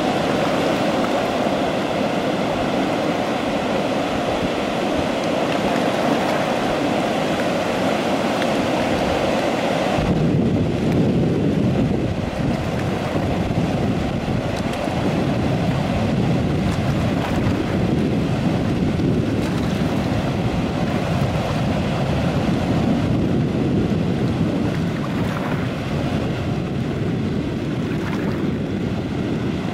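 Chena River water churning out in whitewater from under the lowered flood-control gates, a steady rushing roar. About ten seconds in it turns deeper, with less hiss.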